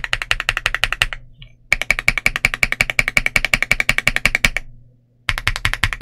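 Fast typing on an Ajazz AC100 mechanical keyboard with Butter Ice Cream linear switches and double-shot PBT Cherry-profile keycaps: a rapid string of key clacks, broken by two short pauses.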